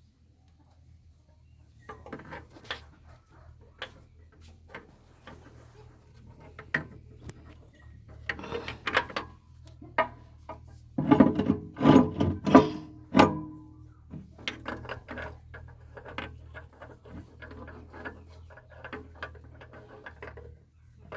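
Metal tools and hydraulic pump parts clinking, tapping and scraping as they are handled, with a louder cluster of knocks about halfway through, over a steady low hum.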